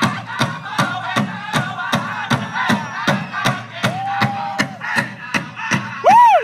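Powwow drum group: a big drum struck evenly about three times a second under group singing. A high note is held for under a second about four seconds in, and a short, loud rising-and-falling whoop comes near the end.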